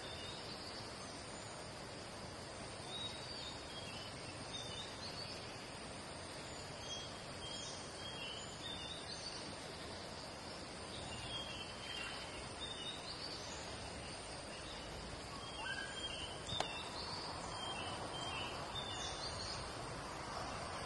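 Outdoor ambience: a steady hiss with small birds chirping and twittering on and off, and a single sharp click about three-quarters of the way through.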